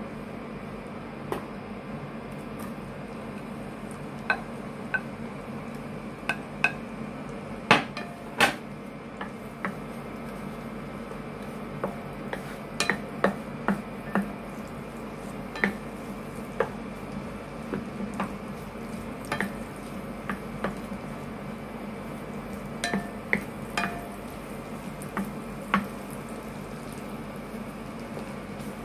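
Wooden spatula clacking and scraping against a nonstick frying pan as ginger strips are dropped into melting butter and stirred. Scattered sharp knocks, the loudest about eight seconds in, over a steady low hum.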